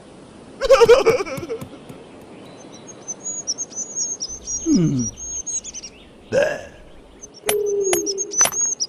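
Cartoon sound effects. A short wordless vocal sound about a second in, then rapid high bird chirping through the middle with a falling glide, and a second short vocal sound. Near the end come four sharp taps about two a second: a stone hammer striking a chisel on a stone slab.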